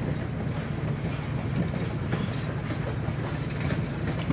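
Oil Creek & Titusville passenger coaches rolling past over the rails, a steady rumble with faint clicking of the wheels and a low hum under it.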